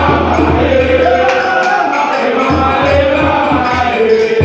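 A crowd of students singing and chanting a school morale song together over a steady beat.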